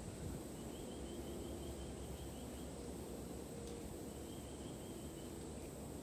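Two faint, high, rapidly pulsed trills from a small animal: one of about two seconds, then a shorter one about four seconds in, over a steady faint outdoor hiss.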